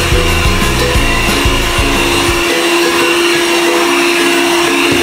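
Electric hand mixer running steadily, its beaters whipping cream in a stainless steel bowl. Background music plays alongside, its low notes dropping out about halfway.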